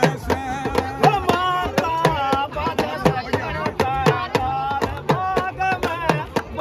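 Two small hand drums beaten with curved sticks in a quick, steady beat of about three to four strokes a second, under a man singing a folk song.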